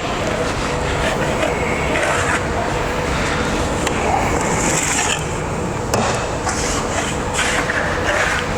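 Scraping and knocking of a steel tamping rod and tools against wet concrete in a metal slump cone, with one sharp knock about six seconds in, over a steady background hiss.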